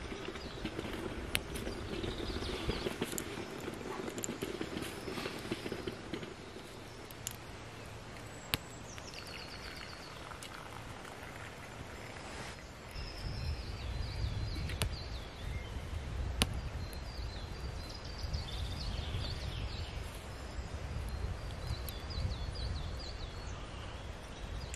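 Wood fire burning in a small twig stove, with scattered sharp crackles and pops, while songbirds chirp and sing repeatedly in the background.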